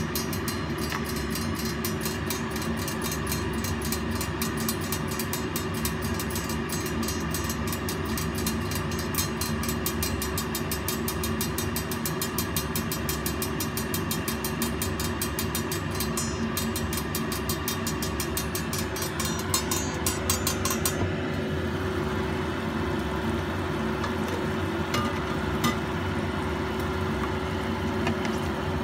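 A steady machine hum with a fast, even ticking over it that stops about 21 seconds in; a few separate clicks follow.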